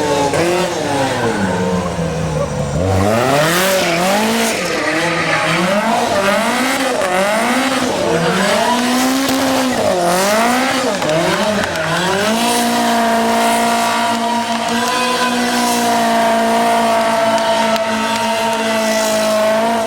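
Lancia 037 Group B rally car's supercharged four-cylinder engine revving hard. The pitch rises and falls repeatedly through gear changes and lifts, then holds a steady high note from about twelve seconds in.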